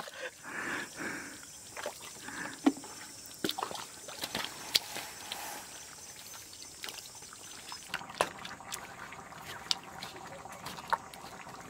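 Quiet squelching and sloshing of feet and water in wet mud, with scattered small clicks. About eight seconds in the sound changes to a few sharp, irregular light knocks from a wooden pestle in a mortar.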